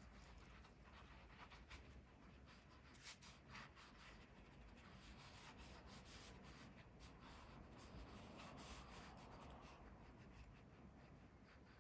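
Faint scratching of drawing strokes on sketchbook paper, with scattered light ticks.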